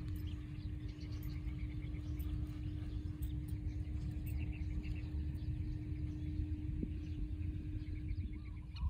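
Open-air ambience: a steady low rumble of wind on the microphone under a steady low hum that stops near the end, with faint scattered bird chirps.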